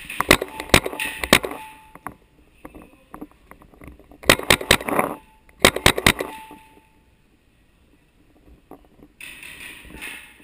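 Paintball marker firing two quick strings of sharp shots, the first about a second in and the second around four to six seconds in.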